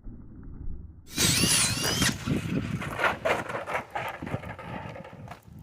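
Traxxas Sledge RC monster truck's brushless electric motor on 3S LiPo, quiet at first, then bursting into a high whine that rises and falls as it speeds past, with tyre noise on asphalt. Several sharp knocks and clatters follow.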